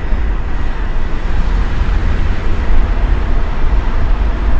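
Car on the move: steady road and wind noise, heaviest in a deep low rumble, with no separate events standing out.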